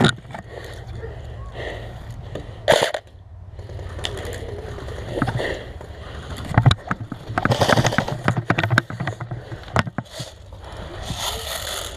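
Irregular knocks, clicks and rustling from a player moving with gear against a body-worn camera, over a steady low rumble. A dense run of rapid clicks comes about seven to eight and a half seconds in.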